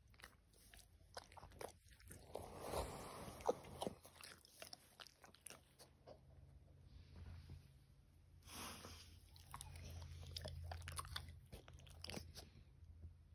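Crunchy chewing: irregular small crackling bites close to the microphone, in two spells, the sharpest crunch about three and a half seconds in.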